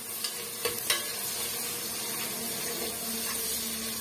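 Small shallots and curry leaves sizzling in hot oil in a non-stick pot as a spatula stirs them, with two light clicks of the spatula against the pot about a second in.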